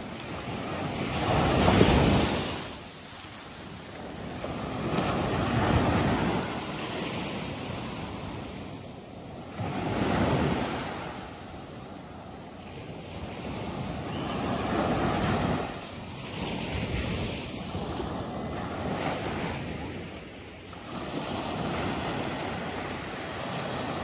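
Small sea waves breaking and washing up a sandy beach, the surf swelling and fading about every four seconds, loudest about two seconds in.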